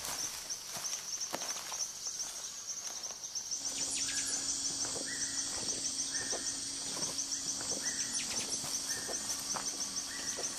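Rainforest ambience: a steady, fast-pulsing high insect trill throughout. From about four seconds in, a low steady hum joins it, and an animal repeats a short call about once every second and a quarter, six times.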